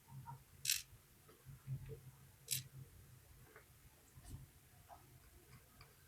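Faint, sparse clicks and ticks of small lock pins and drivers being handled and set down, with two sharper clicks, one under a second in and one about two and a half seconds in, over a low steady hum.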